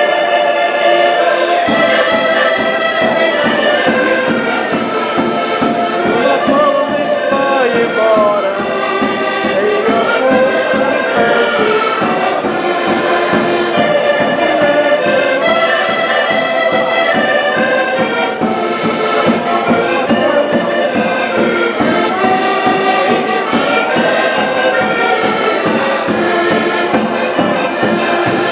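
Portuguese folk ensemble playing a lively tune: several accordions in unison with a small strummed string instrument, over a steady bass drum beat that joins about two seconds in.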